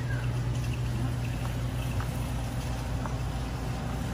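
Steady low hum of a warehouse store's background noise, with a few faint short high ticks scattered through it.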